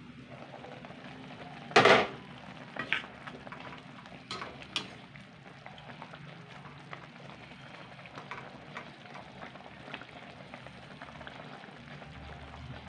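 Pork belly simmering and sizzling in its soy-sauce marinade in a metal wok. About two seconds in there is a loud clatter as the glass lid comes off, followed by a few clicks of a spatula against the pan as the pieces are stirred.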